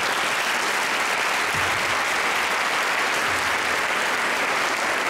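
Audience applauding, a steady even clapping that holds at one level throughout.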